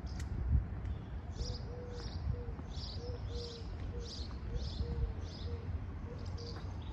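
Songbirds twittering: a steady run of short high chirps, about two a second, beginning about a second in, over a low rumble.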